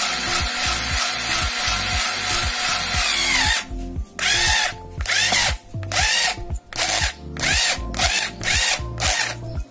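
Small electric drill-driver working bolts on a small engine's stator plate: it runs steadily for a few seconds, then is triggered in about eight or nine quick short bursts, its motor whining up and falling off with each pull.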